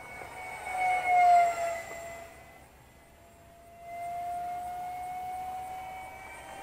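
Eachine F18's 50 mm electric ducted fan whining in flight on full 4S power. About a second in, a loud pass drops in pitch as the jet goes by. The whine fades briefly, then comes back steady.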